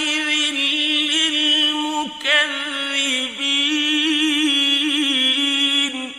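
A male Quran reciter singing in the ornamented mujawwad style, holding long notes with a wavering pitch. There is a short break about two seconds in, and the phrase ends near the end, fading out in echo.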